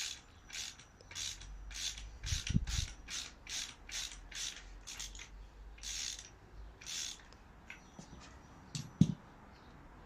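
Hand tool being worked back and forth on a motorcycle front fork in short raspy strokes, about two a second, which stop near the end. A dull thump comes a few seconds in, and a sharper knock near the end.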